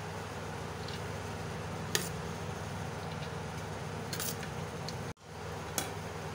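Soft handling sounds of cooked basmati rice being spread into a large aluminium pot: a few faint light clicks over a steady low hum. The sound cuts out briefly about five seconds in.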